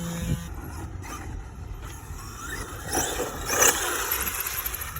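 Traxxas X-Maxx 8S RC monster truck's brushless electric motor and drivetrain whining as the truck accelerates, the pitch rising twice.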